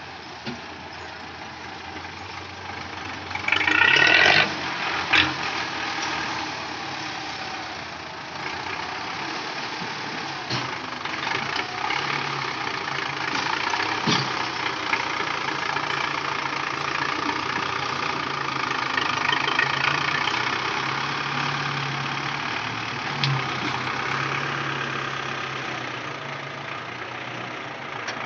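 Belarus tractor's diesel engine running steadily as it hauls a heavily loaded sugarcane trolley past, growing louder as it nears and easing off near the end. A brief loud high-pitched sound cuts in about four seconds in.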